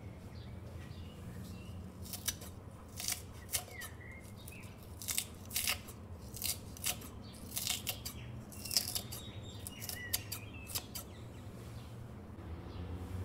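A knife cutting crisp iceberg lettuce held in the hand, making a quick irregular series of crunchy snaps that stop about two seconds before the end.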